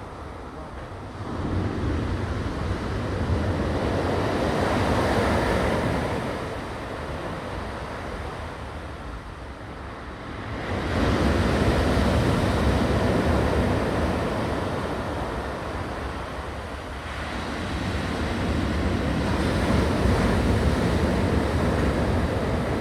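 Sea waves breaking and washing ashore, the surf swelling and fading three times, with a steady low rumble of wind on the microphone.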